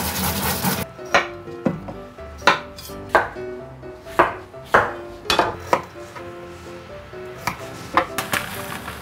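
A kitchen knife cutting on a cutting board in about eleven sharp, separate knocks at irregular spacing. Running water cuts off just before a second in, and light background music plays underneath.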